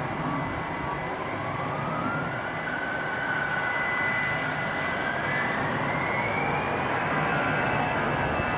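Twin-engine jet airliner on its takeoff roll: a steady engine roar with a whine climbing in pitch as the engines spool up to takeoff power.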